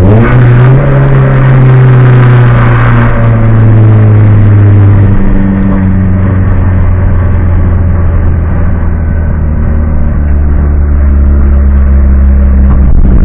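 Competition car's engine heard from inside the caged cabin: the revs rise briefly at the start, hold steady, then drop about five seconds in to a low, even drone as the car rolls along slowly.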